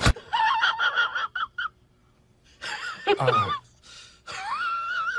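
A woman's high-pitched, wheezing laughter: short squeaky bursts, a gasp, then a long warbling wheeze from about four seconds in.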